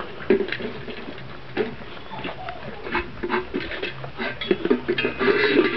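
Kuvasz puppies eating dry kibble from stainless steel bowls: chewing, with irregular quick clicks and clinks of kibble and muzzles against the metal.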